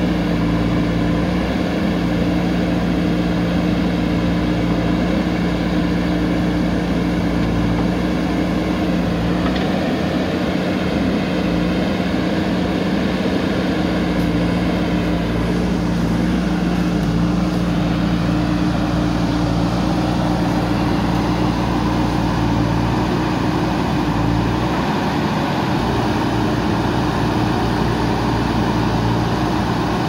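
Diesel engines of a JCB backhoe loader and a dump truck running steadily, a constant mechanical drone.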